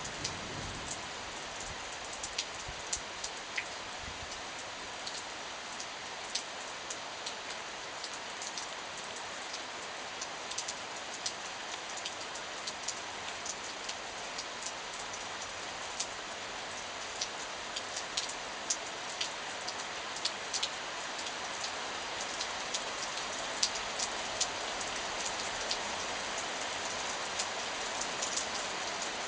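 Heavy steady rain during a thunderstorm, with frequent sharp ticks of drops striking a hard surface close by; it grows slightly heavier over the last several seconds.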